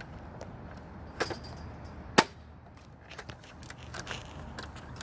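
Two sharp clicks over a low, steady rumble, the louder a single crisp snap about two seconds in, with a few faint ticks after.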